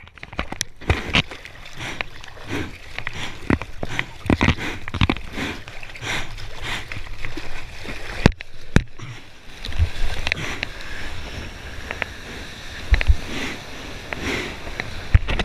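Water splashing and sloshing against a surfboard and the waterproof housing of the action camera mounted on it, broken by frequent sharp knocks and bumps as the board moves through the water.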